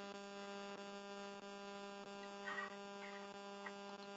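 Faint, steady electrical hum with a buzzy stack of overtones, with a few faint, brief soft noises about halfway through.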